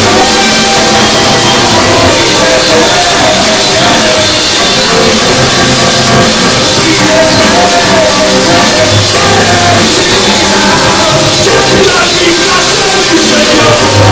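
Church choir of men singing a lively worship song into handheld microphones over an amplified live band with drums, loud and without a break.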